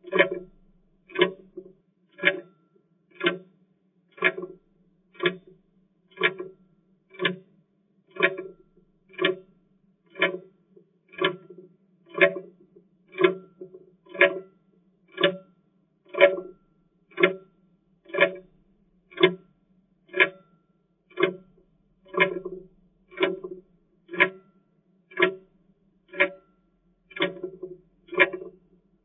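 Clock ticking steadily in a tick-tock, one tick a second.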